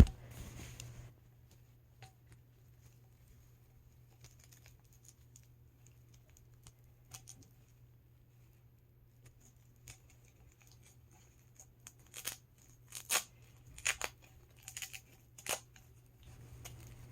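Doll clothes and packaging being handled: faint scattered rustles and clicks, then a cluster of short, sharp tearing rasps near the end.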